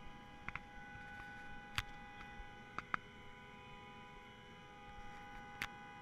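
Faint steady hum made of several fixed high tones, broken by a handful of short, sharp clicks of handheld camera handling, the strongest about two and three seconds in.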